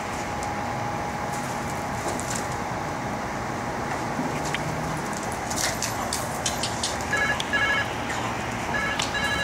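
Pit bull puppy playing in a yard, giving several short high-pitched yips near the end over a steady background hum, with a few quick clicks in the middle.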